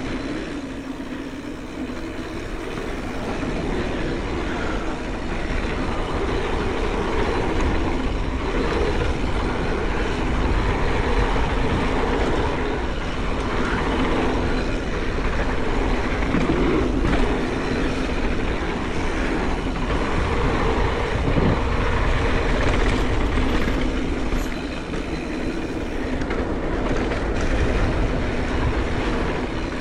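Mountain bike descending a dirt trail at speed: wind buffeting the microphone with a heavy rumble, over a steady rattle of knobby tyres and bike on rough ground.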